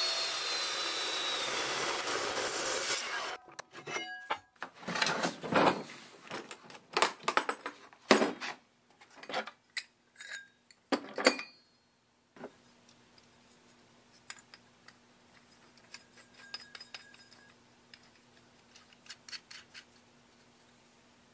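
Evolution chop saw cutting through steel plate with a steady high whine that stops suddenly about three seconds in. It is followed by an irregular run of clicks and clatters from metal hole saws being handled in their plastic case, then a few light clinks.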